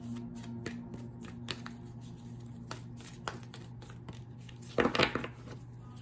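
A deck of oracle cards being shuffled by hand: scattered soft card flicks, then a short run of rapid riffling about five seconds in, over a steady low hum.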